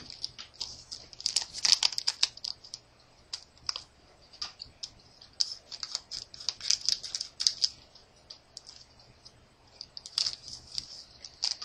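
Trading cards from a freshly opened booster pack being handled and flicked through one by one: irregular flurries of quick, light clicks and snaps of card stock.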